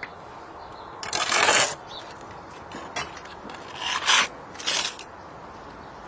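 Scraping on brick and mortar during brick replacement: one long scrape about a second in, then three shorter scrapes.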